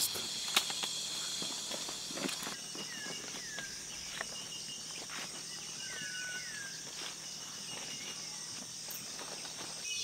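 Footsteps on leaf litter along a rainforest trail, heard as scattered crunches and clicks over a steady high chorus of insects. Two pairs of short falling whistled calls come about three and six seconds in.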